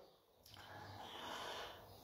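Near silence, then a faint breath from about half a second in, fading out near the end.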